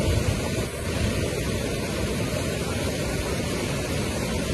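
Fast-flowing muddy floodwater rushing across a road, a steady loud rushing noise.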